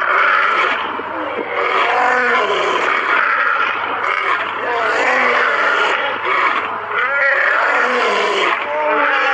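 Lions roaring and growling, several calls overlapping without a break, each rising and then falling in pitch.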